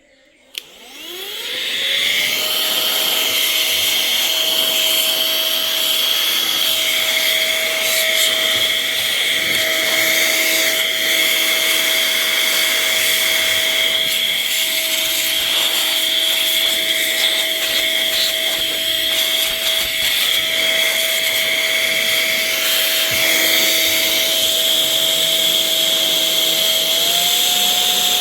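Small motor of a handheld electric dusting tool cleaning dust out of a PC. It spins up with a rising whine over the first two seconds, then runs steadily with a high whine and rushing air. The pitch steps up slightly near the end.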